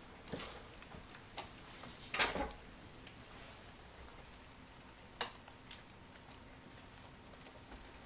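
Scattered light knocks and clunks from a Yamaha dirt bike being handled and wheeled around. The loudest rattle comes about two seconds in and a sharp click about five seconds in. The engine is not running.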